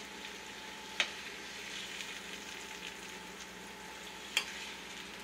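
Steak sizzling steadily in a frying pan, with two short sharp clicks, about a second in and again near the end.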